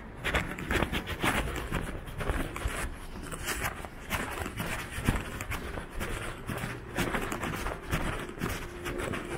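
Footsteps walking at a steady pace on a hard surface, about two steps a second, over continuous city background noise, with a faint steady hum near the end.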